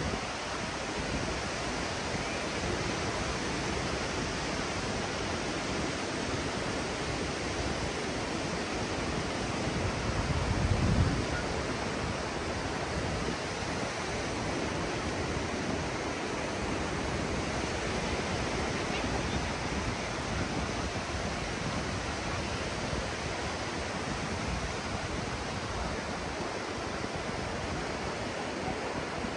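Ocean surf washing onto a sandy beach: a steady, even wash of waves, with a brief louder low rush about ten seconds in.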